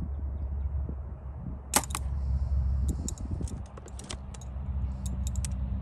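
A 70-pound compound bow shot with an UltraView hinge release: one sharp snap a little under two seconds in as the string is let go, followed by scattered light clicks. A steady low wind rumble lies under it all.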